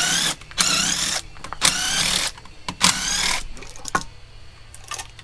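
Cordless drill-driver running in four short spurts, each a rising whine as the motor spins up, backing out the valve cover bolts on a Hellcat supercharged V8. A couple of light metallic clicks follow near the end.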